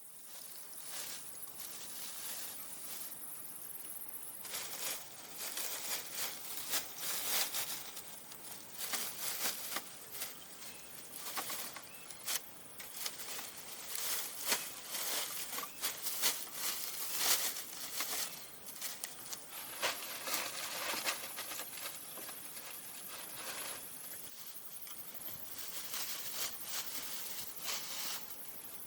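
Irregular rustling and crackling, busiest in the middle stretch, over a steady high hiss.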